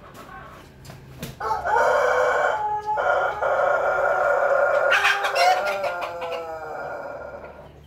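Ayam pelung ketawa rooster crowing: one long crow of about six seconds starting about a second and a half in, with a brief dip early on and a falling, fading tail near the end.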